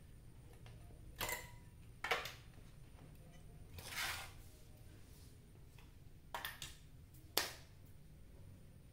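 Five short clatters and knocks of a CRT television's circuit board and its wiring being handled and lifted away, the one near the middle a little more drawn out.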